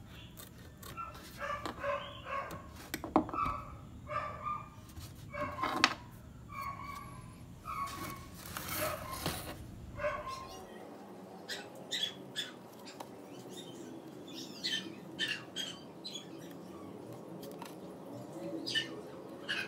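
A dog barking repeatedly through the first half, short calls in quick runs, with sharp clicks and taps over the rest.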